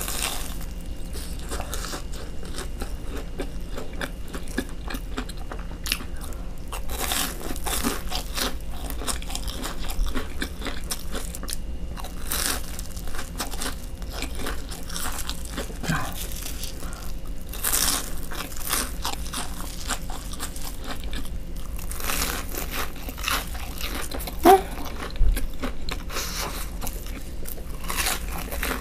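Close-miked biting and chewing of a crisp breaded, deep-fried stick: repeated crunching crackles as the crust breaks, with wet chewing between bites. Two brief louder knocks come about three-quarters of the way through.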